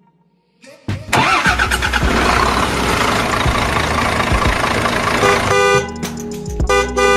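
Vehicle sound effect: a loud, noisy vehicle din starts about a second in, then a vehicle horn honks near the end.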